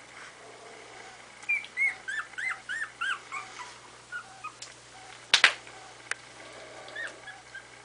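Young puppies whimpering in short, high-pitched arching cries, a quick run of them in the first few seconds, then scattered softer ones. A sharp click about five seconds in.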